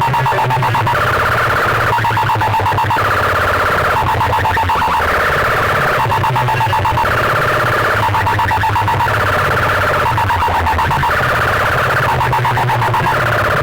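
Very loud electronic competition track played through a big sound-system rig. A rapidly pulsing, alarm-like synth tone switches between a higher and a lower pitch about once a second, over a pulsing bass.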